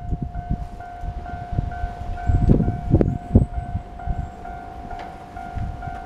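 Keio Line level crossing's electronic warning bell starting up and ringing at about two strikes a second, the signal that a train is approaching and the crossing is closing. Low rumbling gusts of wind noise sit under it.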